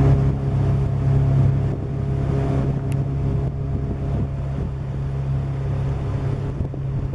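Motorboat engine running steadily under way, a constant low hum, with wind rushing over the microphone.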